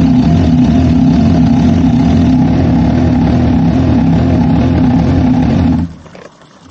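MV Agusta Brutale motorcycle engine idling steadily, then cut off suddenly near the end.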